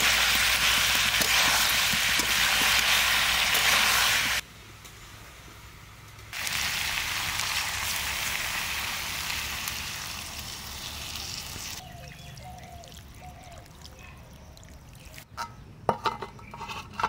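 Chicken and potato curry sizzling loudly in a steel kadai. A few seconds in, water is poured from a bowl into the hot pan and sizzles, slowly dying down. A few sharp clinks near the end as a steel plate is set on the kadai as a lid.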